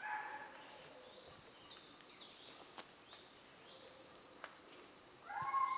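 Rainforest ambience: a steady high insect drone, with a run of quick downward-sweeping bird calls. About a second before the end, a louder held whistle-like tone begins.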